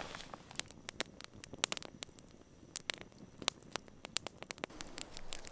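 Small wood campfire of twigs and sticks, just catching, crackling with scattered, irregular sharp pops, a few of them louder.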